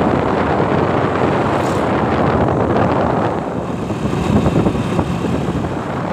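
Steady rush of wind on the microphone, with the running noise of a vehicle travelling along a road; it eases a little after the midpoint.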